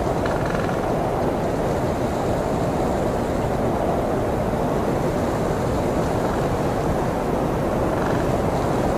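Blizzard wind blowing steadily, a dense rushing noise with most of its weight low down, with faint brief whistles near the start and near the end.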